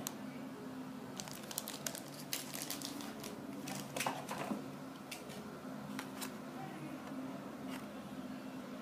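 Plastic packaging crinkling with scattered small clicks and taps as a USB cable in its plastic bag is handled and put down and a clear plastic microSD case is picked up, over a faint steady low hum.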